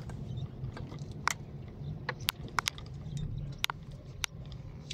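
Inside a car driving on a sandy track: a steady low drone of engine and tyres, with scattered sharp clicks about half a dozen times.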